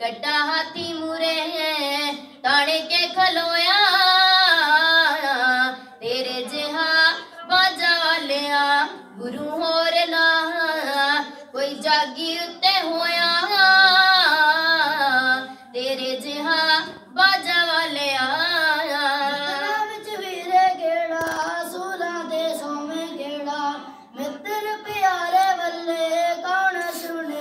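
A girl's voice singing a Sikh devotional song unaccompanied, in long melodic lines with wavering, gliding pitch and short pauses between phrases.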